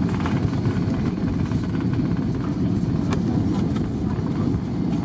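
Cabin noise inside an Airbus A320 taxiing after landing: a steady low rumble of the engines and the wheels rolling on the taxiway, with a single sharp click about three seconds in.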